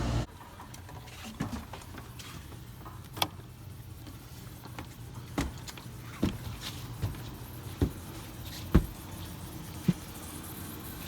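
A steady hum, typical of the outdoor AC condensing unit, cuts off just after the start. It is followed by a string of irregular light knocks and thumps about a second apart: a person moving about and handling things.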